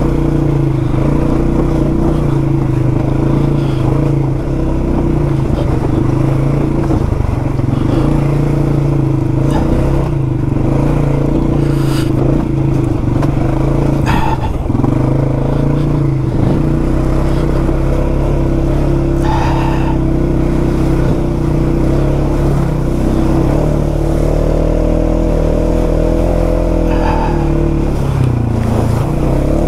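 2021 Polaris 570's engine running steadily under way on a rough trail, with a few short knocks from the machine hitting things along the trail.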